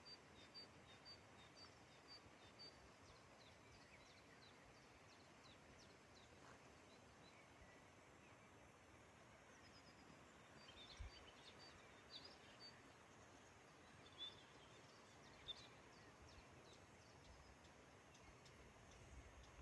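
Faint birdsong over a quiet outdoor background: a short run of evenly repeated high notes at the start, then scattered high chirps in the middle.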